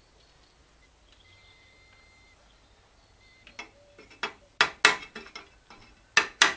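Steel part of a pellet boiler's burning head being scraped and knocked clean with a metal tool. After a quiet start with a faint high tone, a series of sharp metallic knocks and scrapes begins about three and a half seconds in, growing louder toward the end.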